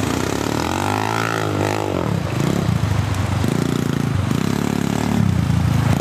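Motoland XR 250 enduro dirt bike's single-cylinder four-stroke engine revving. Over the first two seconds the pitch rises and falls, and after that it opens and closes the throttle in repeated bursts as the bike is ridden.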